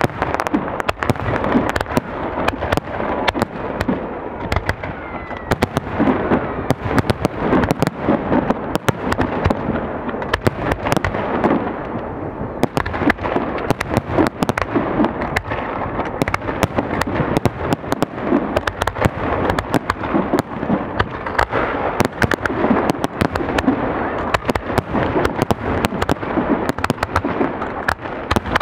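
Fireworks display going off continuously: a dense, unbroken barrage of sharp cracks and bangs, many per second.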